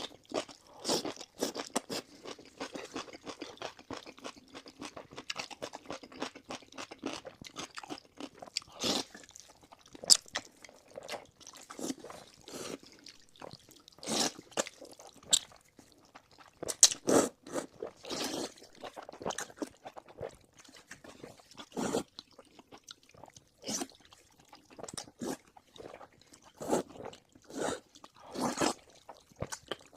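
Close-miked chewing and crunching of fried pork and noodles: irregular crisp crunches and smacking mouth sounds, with louder crunchy bites scattered through.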